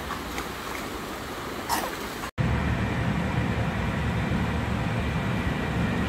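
Steady rush of stream water, cut off abruptly about two seconds in by a louder, steady low rumble.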